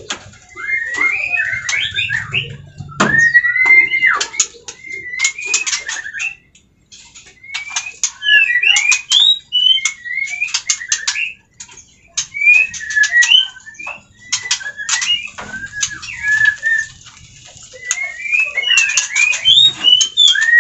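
White-rumped shama (murai batu) singing: loud, varied phrases of sweeping whistles mixed with sharp clicks, in bursts a few seconds long with short pauses between.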